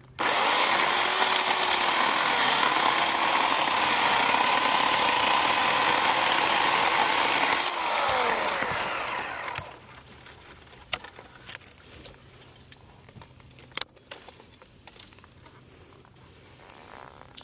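Chainsaw running at high revs for about eight seconds, then the revs fall away as the throttle is released and it winds down. Afterwards scattered small snaps and knocks.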